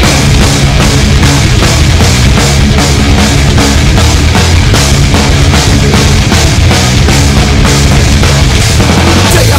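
Loud hard rock backing music with a steady, driving drum beat and no vocals.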